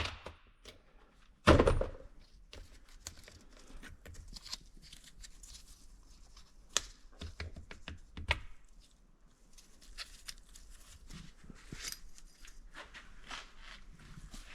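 One heavy thunk about a second and a half in, then scattered light clicks and knocks of hand tools and metal engine parts being handled during an engine teardown.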